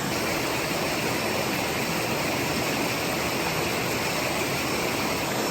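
Steady rushing of a jungle stream: an even, unbroken hiss of flowing water.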